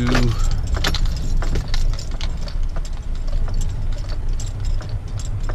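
A vehicle's engine and road rumble heard from inside the cab as it rolls slowly over gravel, with scattered irregular clicks and crunches over the steady low rumble.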